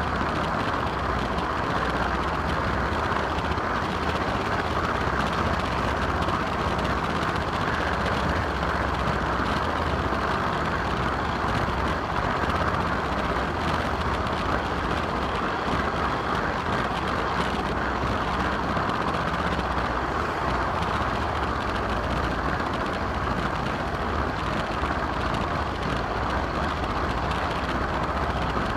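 Steady running noise of a garden-railway train heard from a camera riding on board: an even rolling hiss and rumble of wheels on the track, without a break.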